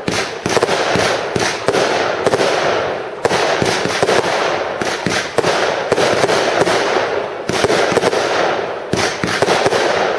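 Large compound fireworks cake firing a continuous, dense barrage of shots, bangs and crackling with no pause.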